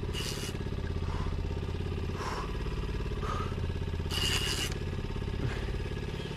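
A boat engine running steadily at low speed, with two short hissing bursts, one at the start and one about four seconds in.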